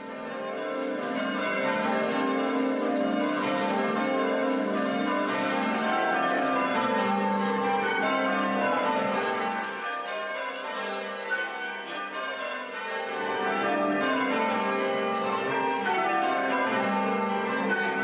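Church tower bells rung in changes, a continuous run of overlapping bell strokes in shifting order. It fades in over the first couple of seconds and dips briefly about ten and thirteen seconds in.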